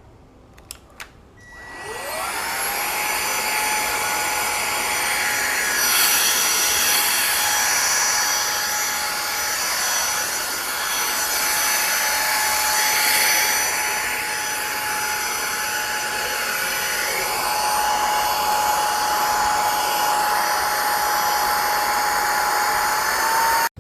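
Airbot Hypersonics Max cordless stick vacuum cleaner switched on with a couple of clicks. Its motor whine rises for about a second, then it runs steadily with a high, even whine over a loud rush of air.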